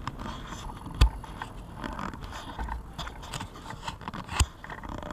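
Handling noise on a small camera: rubbing and scraping with low rumble, and two sharp knocks, about a second in and again near the end.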